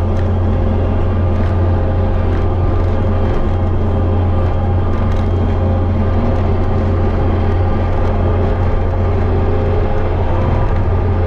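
Kubota SVL65-2 compact track loader's diesel engine running steadily under load, driving a hydraulic rotary brush cutter through tall grass, heard from inside the cab as an even, loud low drone.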